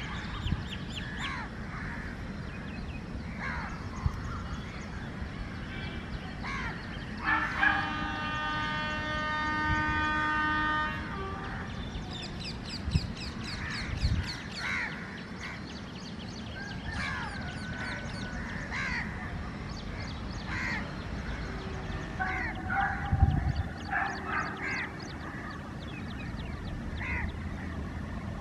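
Crows cawing repeatedly over a low steady rumble, with a train horn sounding once for about three and a half seconds about seven seconds in. A few low thumps, the loudest about 23 seconds in.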